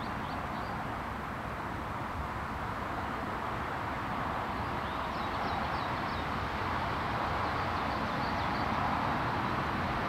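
Steady outdoor background noise with a few faint, high chirps of a small bird, clearest about five seconds in. The geese themselves are not heard calling.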